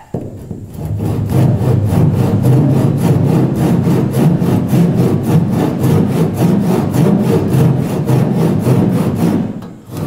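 Hand back saw cutting across a wooden boat gunwale in a steady rhythm of quick back-and-forth strokes, stopping shortly before the end. It is a depth-stop cut down to the pencil line before the wood is chiseled away.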